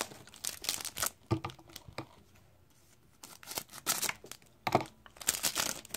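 A Topps Stadium Club trading card pack being torn open: a series of short rips and crinkles of the wrapper, with a pause of about a second in the middle.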